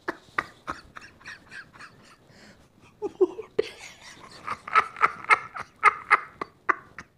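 A man laughing hard in a run of short, breathy bursts, about four a second, faint at first and louder from about halfway.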